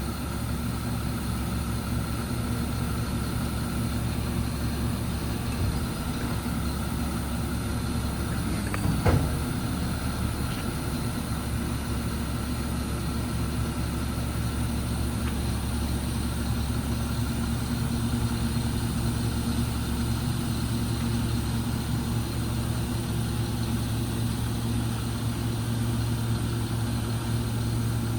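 Caterpillar C7 diesel engine running steadily with the PTO engaged, driving the hydraulics as the service crane is run up. One short, sharp knock about nine seconds in.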